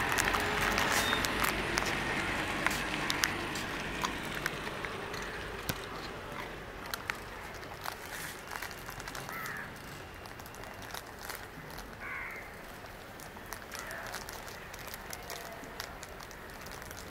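Outdoor street ambience: broad traffic noise fading away over the first several seconds, then a quieter background with scattered light clicks and a few short, separate bird calls.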